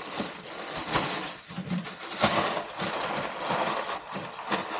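Plastic wrapping and crumpled packing paper rustling and crinkling as they are pulled out of a cardboard box, with a few sharper crackles.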